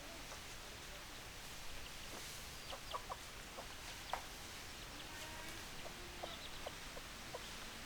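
Hens clucking: many short, scattered clucks over a steady background hiss.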